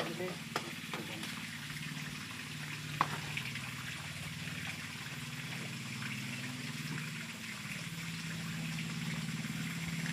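Water running steadily, with a steady low hum underneath and a few faint knocks in the first seconds.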